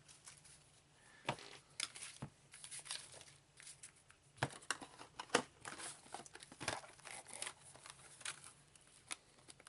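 Foil trading-card booster-pack wrappers crinkling and tearing as packs are opened by hand, in short, irregular crackles and rustles.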